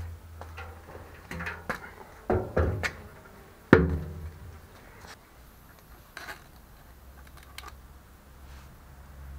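Hollow knocks and thuds of a steel melter drum being tipped and banged to shake its slumgum out onto concrete. There are about seven knocks in the first four seconds, the loudest a little under four seconds in, then a few lighter ones.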